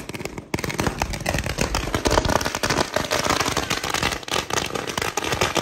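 A string of firecrackers going off in a dense, rapid crackle of pops, starting after a short gap about half a second in.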